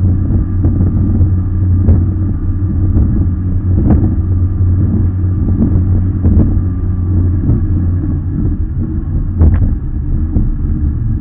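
A racing RIB's engine running steadily at speed, heard from on board as a loud low rumble with a faint whine. A few sharp knocks cut through it as the hull hits the waves, the loudest near the end.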